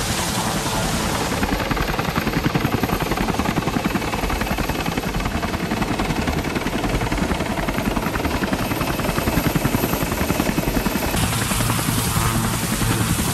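Helicopter rotor sound: blades chopping in a fast, steady beat. About eleven seconds in, the mix changes to a brighter hiss with a steady low hum underneath.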